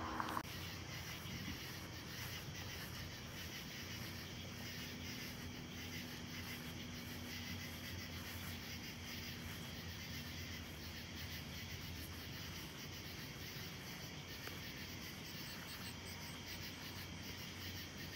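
Summer night ambience: crickets chirping steadily, over a faint low hum. A louder sound with steady tones cuts off abruptly about half a second in.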